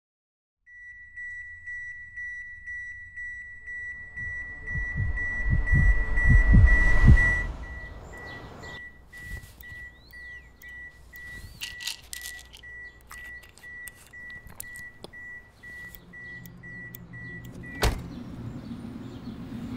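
A steady high electronic tone over a swelling low rumble that cuts off abruptly about seven and a half seconds in. The tone then carries on as a fast-pulsing car warning chime, with keys jingling and small clicks, until a car door shuts with a thud near the end and the chime stops.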